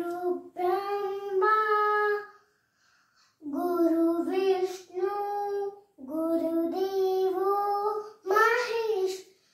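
A young child's voice singing unaccompanied, in held phrases with short breaths between them; the longest pause comes about two and a half seconds in.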